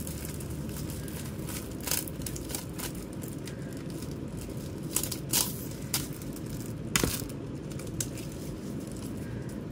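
Plastic wrapping crinkling and tape being pulled off CD jewel cases, with scattered sharp clicks and rustles as the hard plastic cases are handled, the loudest a little after halfway. A steady low hum runs underneath.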